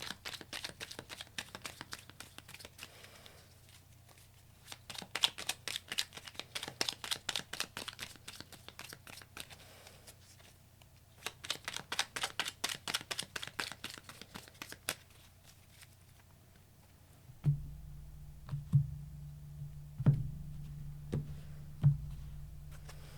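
A deck of tarot cards being shuffled by hand: three spells of rapid flicking and riffling, each a few seconds long with short pauses between. Near the end, a low steady hum comes in with a few soft thumps.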